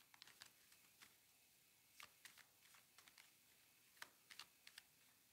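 Faint, irregular clicks and taps of oracle cards being handled and shuffled by hand, the loudest about two seconds and four seconds in.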